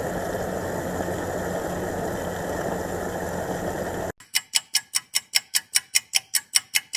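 A tractor engine idling steadily, which cuts off suddenly about four seconds in. It is followed by a rapid, even ticking of about six sharp clicks a second.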